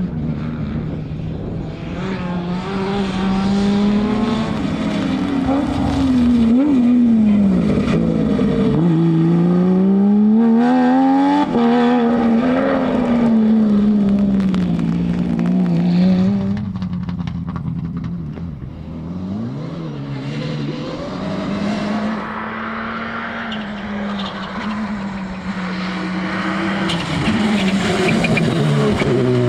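Rally car engines at racing revs, the pitch climbing and dropping over and over as the cars accelerate, change gear and brake through the stage.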